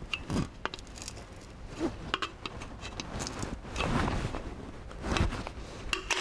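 Light metallic clicks and scrapes, scattered and irregular, from a sheet-metal convection grille frame being handled and its tabs bent out with a screwdriver.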